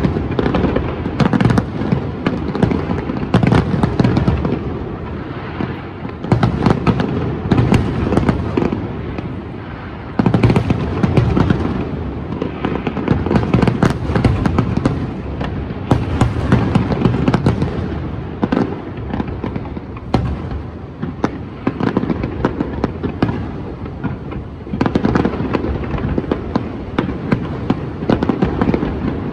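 Large fireworks display: a dense, continuous barrage of shells bursting, booms and crackling overlapping without pause, with heavier volleys about a third of the way in and again near the end.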